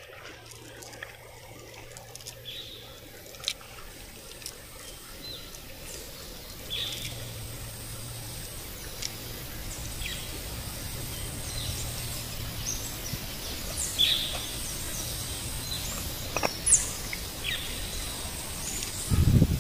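Monsoon stream water running, growing steadily louder, with short bird chirps repeating every second or two. A loud low rumble starts near the end.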